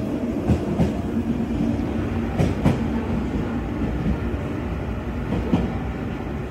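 Electric commuter train running along the station platform: a steady low rumble of wheels on rails, with pairs of sharp clacks as its bogies cross rail joints, a few times over.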